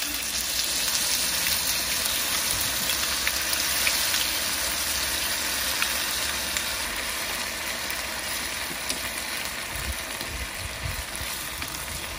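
Food frying in a pan: a steady sizzle with scattered crackles over a low steady rumble, easing off slightly in the second half.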